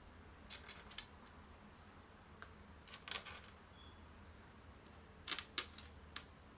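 Sparse sharp clicks and light taps of small hard parts being handled, loudest as a close pair about five seconds in.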